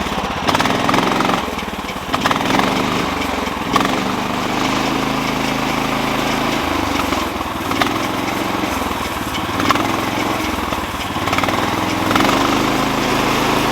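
Small gasoline engine running steadily, its note shifting a few times, with a few sharp clicks and knocks over it.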